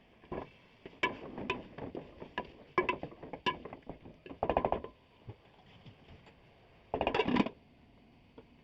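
A series of sharp knocks and clicks, with two short bursts of rapid rattling, one about halfway through and one near the end.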